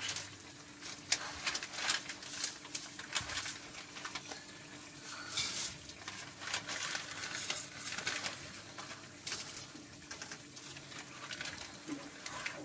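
Dry spaghetti being put into a pot of boiling water and stirred: scattered light clicks and taps of a utensil against the pot, with a brief hiss about five seconds in.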